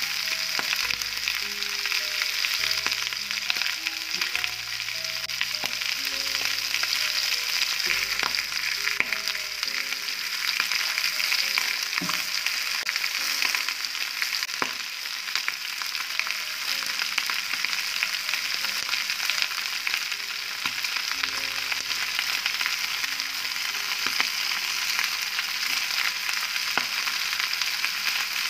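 Liver and kidneys frying in an aluminium pan, a steady sizzle with a few sharp clicks as onion and tomato pieces are dropped in.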